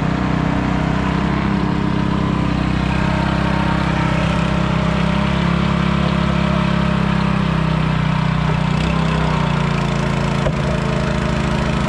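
Motor fishing boat's (bangka's) engine running steadily and loudly, its pitch shifting slightly about eight or nine seconds in.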